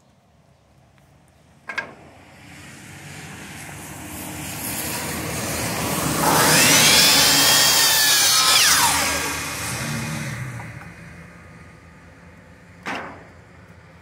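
Electric miter saw cutting a wooden board: the motor runs and the blade is loudest while it goes through the wood, with a whine that bends in pitch, then it winds down. A sharp click about two seconds in and another near the end.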